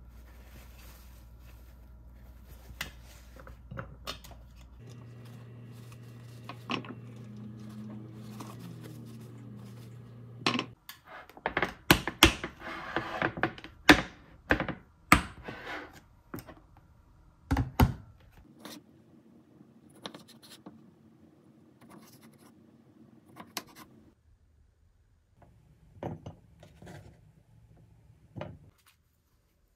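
Kitchen handling sounds: light rustling and scratching of a paper towel over cherry tomatoes, then a run of sharp clicks and knocks as a glass food-storage container is handled and its plastic lid is pressed on and latched. Near the end come a few knife knocks on a wooden cutting board.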